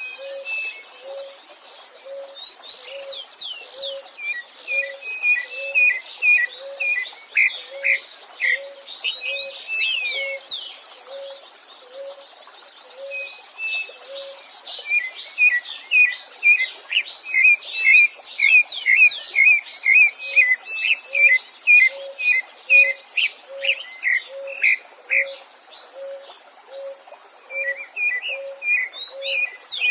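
Several songbirds singing together, with rapid chirps and sweeping whistled notes, over a low cooing note repeated steadily a little more than once a second, likely a dove.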